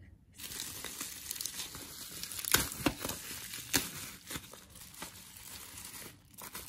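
Plastic bubble-wrap packaging crinkling and rustling as it is opened and pulled back from CD cases, with three sharper crackles in the middle.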